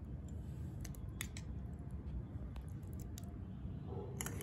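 A few light clicks and taps as chopped papaya is put into a glass bowl of custard, over a low steady hum.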